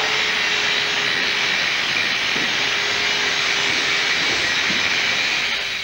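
Electric angle grinder grinding metal: a steady high hiss from the disc on the workpiece, with a faint low hum under it, easing off slightly near the end.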